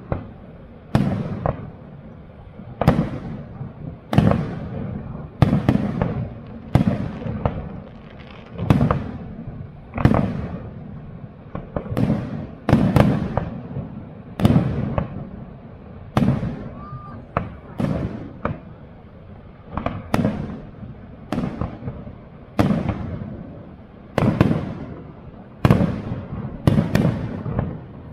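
Fireworks display: aerial shells bursting about once a second, each a sharp bang that trails off.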